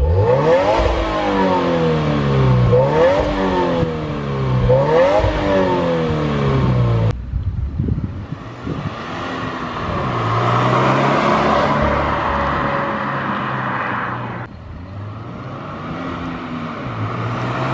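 2018 Subaru WRX's turbocharged flat-four on its stock exhaust, revved in neutral three times, each rev rising quickly and falling back. The car then drives past on the road, its engine note swelling and fading.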